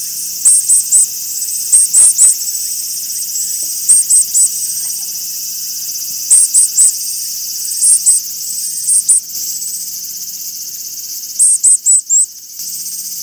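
A steady, high-pitched insect drone, with loud, very high chirps in quick groups of two or three every second or two.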